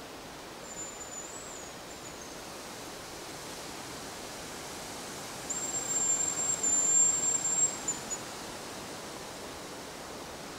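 Hazel grouse whistling: first a short, faint, very high whistle that wavers and drops, then a few seconds later a louder, long, steady whistle at the same high pitch, dipping at its very end.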